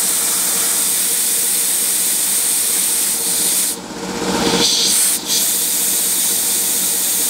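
CNC milling machine's spindle running at top speed with a steady high hiss and hum while a 1/16-inch end mill cuts a cam groove into a brass disk on its first, shallow pass. A little before halfway the sound drops for a moment, swells for about a second, then dips once more before going back to the steady hiss.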